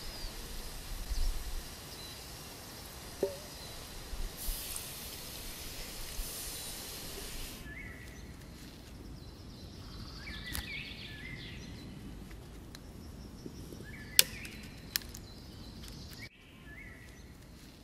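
Hands scraping and rustling dry forest litter and soil over a campfire pit, with scattered small crackles. Partway through it gives way to a quieter woodland background with short bird chirps, light footsteps and two sharp clicks.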